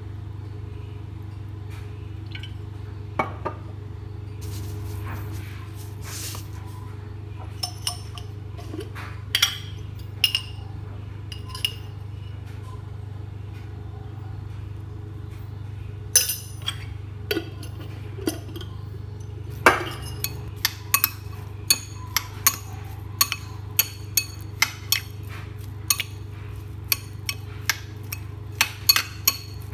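Spoon clinking and scraping against a glass bowl while stirring chopped onion, garlic and herbs in olive oil. There are scattered taps at first, then quick repeated clinks through the last ten seconds, over a steady low hum.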